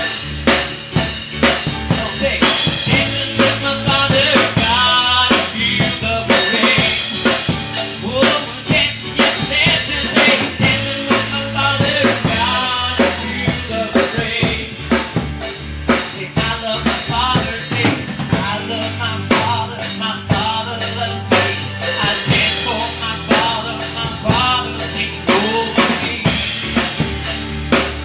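Live rock band playing an instrumental passage, driven by a drum kit with steady bass drum, snare and rimshot hits over a bass line and other pitched instruments.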